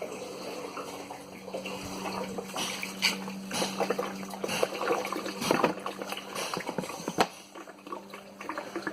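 Diesel trickling and splashing from the return hose of a homemade parts washer as its pump recirculates the fluid, over a steady low hum that stops about seven seconds in.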